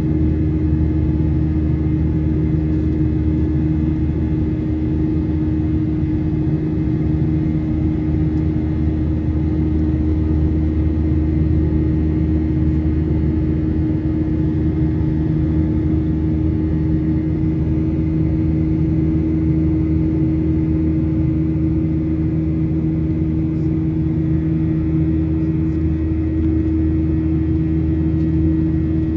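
Steady cabin drone inside a Boeing 737-900ER: its CFM56-7B jet engines humming together with airflow rumble, even and unchanging throughout.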